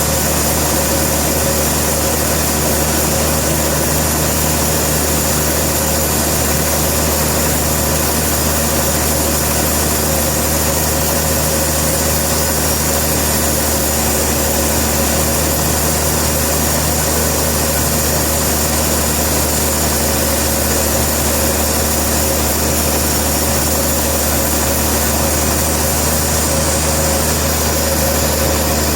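An engine running steadily at an even speed, with no change in pitch or load.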